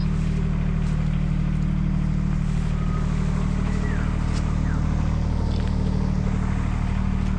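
An engine running steadily at idle, an even low hum that does not change, with a few faint high chirps over it around the middle.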